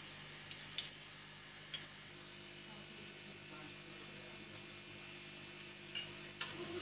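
Pakoras shallow-frying in oil in a cast iron pan, a faint steady sizzle. Light metallic clicks from the wire skimmer and spatula against the pan, three in the first two seconds and two more near the end.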